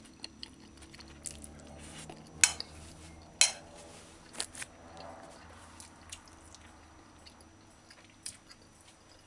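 Metal fork clinking against a plate, two sharp clinks about a second apart with lighter ticks after, between soft chewing sounds of someone eating rice and stew.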